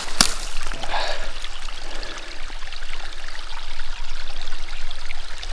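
Small snowmelt spring trickling out of the ground, water running steadily, with one sharp click just after the start.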